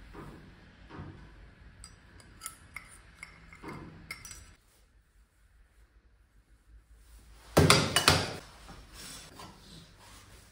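Metal parts and tools being handled on a scooter variator: light clinks and taps, then a loud clatter of knocks about seven and a half seconds in.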